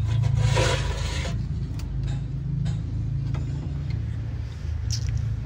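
Steady low engine-like rumble with a few sharp clicks of hand tools on the engine being reassembled, and a short burst of noise about half a second in.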